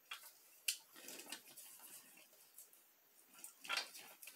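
Faint rustling and light clicks from gloved hands setting artificial plants into a glass jar of small decorative stones. There is one sharp click under a second in and a louder patch of rustling near the end.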